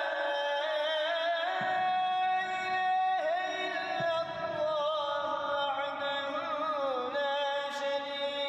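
A man chanting solo and unaccompanied in the melismatic style of mosque recitation: long held notes broken by ornamented wavering turns, the line sinking lower about seven seconds in.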